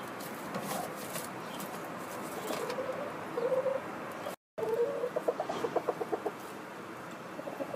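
Hens sitting in straw nest boxes clucking softly. First come a few drawn-out, wavering low calls, then a quick run of short clucks. The sound drops out briefly a little past halfway.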